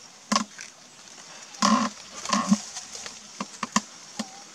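A long-tailed macaque foraging on dry leaf litter: short crackles and rustles of dry leaves under its hands and feet, with two louder, short grunt-like animal sounds about two seconds in.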